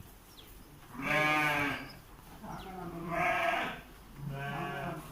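Sheep bleating: three separate calls, the first about a second in and the loudest, then two more shorter ones.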